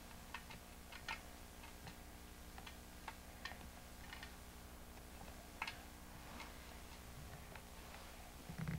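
Small hands tapping and patting on a shiny red toy: faint, irregular light taps and clicks, with a brief louder low sound near the end, over a steady low hum.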